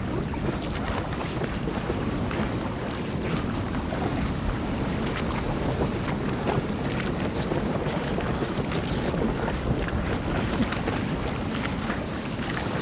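Wind and choppy sea water: a steady rushing noise with scattered small splashes.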